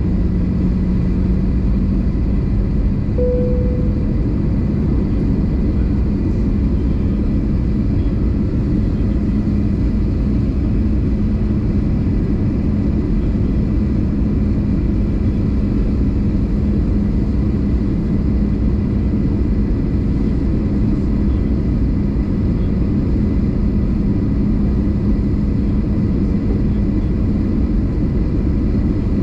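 Airbus A320 cabin noise on approach: a steady roar of engines and airflow with a low engine hum that rises slightly in pitch near the start. A brief tone sounds about three seconds in.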